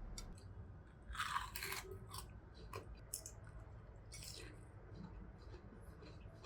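Close-miked chewing of crispy fried cheese: a crunchy bite about a second in, then irregular smaller crunches as it is chewed.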